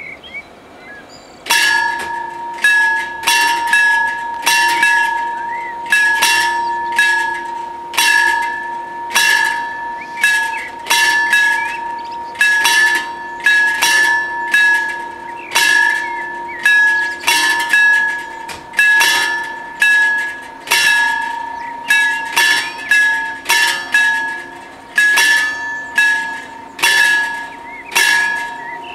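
The two warning bells of an Italian FS 64-type level crossing ring loud and continuously as the crossing closes for a train. They start about a second and a half in, with sharp strikes in quick, uneven succession at about two a second, each one ringing on.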